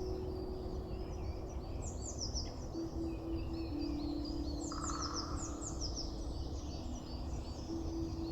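Songbirds singing outdoors: runs of high, quickly falling notes, repeated several times, over a steady low hum and background rumble.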